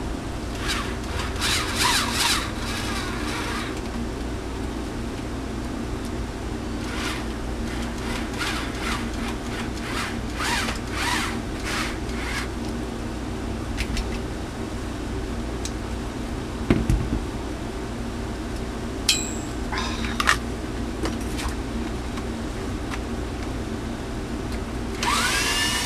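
Screws being driven through a small cooling fan's plastic frame into an amplifier heatsink with a screwdriver, giving intermittent squeaky, grinding bursts over a steady hum. Near the end there is a short motor whir that rises in pitch.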